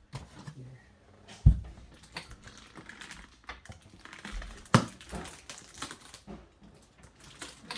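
Scattered light clicks and taps of stiff plastic and duct tape being handled and pressed against a wooden door jamb, with one dull thump about a second and a half in.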